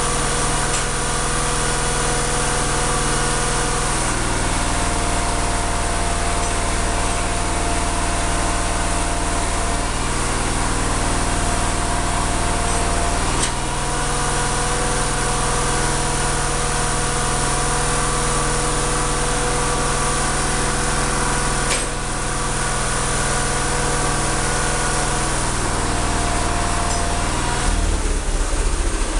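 Case 222 garden tractor's single-cylinder Kohler engine running steadily, its note shifting a few times as it takes and sheds load, turning to a deeper, pulsing beat near the end.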